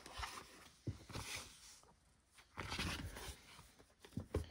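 Soft rustling and light knocks of cardboard and packaging being handled as a playmat is taken out of a collector box and opened up, in several short bursts.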